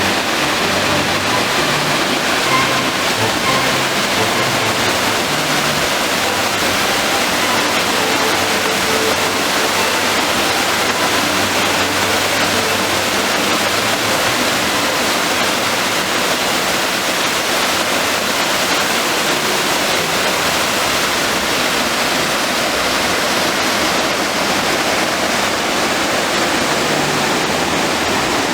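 Waterfall: water falling and rushing, a loud, steady, unbroken roar.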